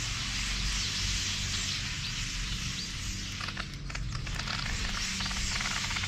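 A flock of pin-tailed whydahs twittering and chirping while feeding at a seed feeder, over a steady hiss.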